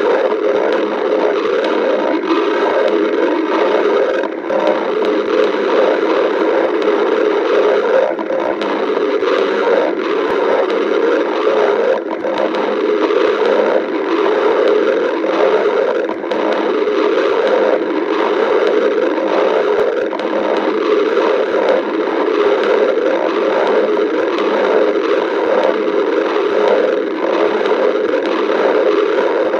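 Stomach growling: a loud, continuous rumble that wavers unevenly and never pauses.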